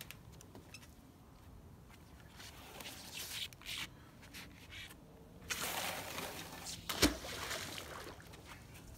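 A magnet-fishing rope being handled and thrown out from a floating wooden dock: scattered rustling, then a longer rush of noise, with one sharp knock about seven seconds in.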